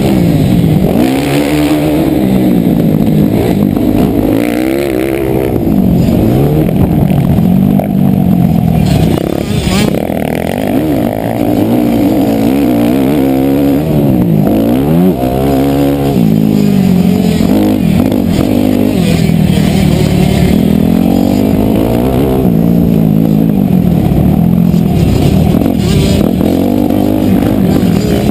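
Motocross dirt bike engine racing at full effort, its pitch sweeping up and down over and over as the rider works the throttle and shifts gears around the track.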